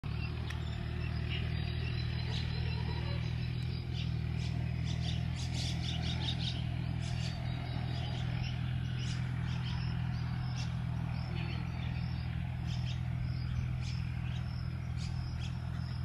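Bulbul calling with repeated short chirps and twitters, with a quick run of notes about five to seven seconds in. A steady low hum runs underneath.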